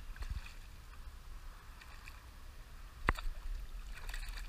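Light water sloshing around a kayak on calm water, with one sharp knock about three seconds in and a small splash near the end.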